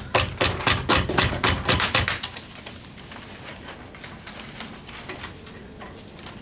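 A few people rapping their knuckles on desks in a quick run of knocks for about two seconds: the desk-knocking applause of a debate round after a speech. Then only faint scattered clicks and paper rustles.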